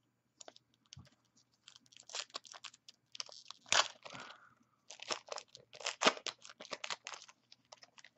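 A 2014 Panini Prizm World Cup trading-card pack wrapper being torn open and crinkled in the hands. It makes a rapid run of crackles and rustles, loudest about four and six seconds in.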